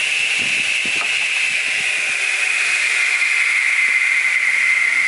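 DeWalt radial arm saw just switched off, its blade and motor coasting down with a steady hissing whir that slowly falls in pitch.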